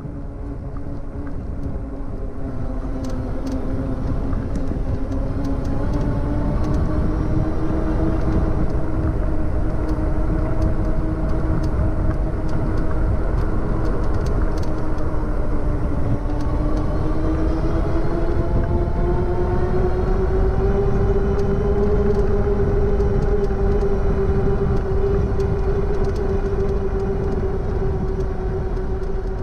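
Electric bike hub motor whining under throttle, with heavy wind rumble on the microphone. The whine rises in pitch as the bike picks up speed, dips briefly about halfway through, then climbs higher and holds.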